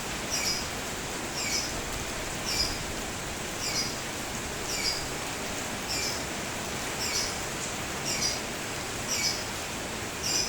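Steady rain with a single bird chirping about once a second, a short high chirp repeated in an even rhythm.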